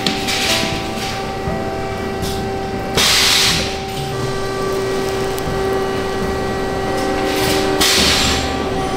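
Carbon fishing rod prepreg rolling machine working with a steady hum, and two short bursts of air hiss, about three seconds in and near the end, as its pressing platen moves to roll the carbon sheet onto the steel mandrel.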